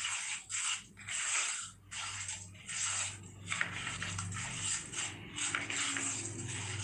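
Wooden spatula stirring and scraping a thick, pasty mixture of milk powder and reduced milk around a nonstick pan, in repeated strokes about two a second.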